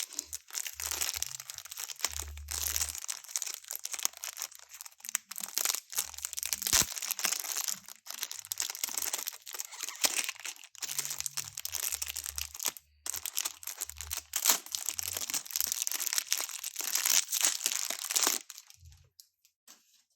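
Plastic planner cover and paper being handled, a steady crinkling rustle with sharp crackles, stopping shortly before the end.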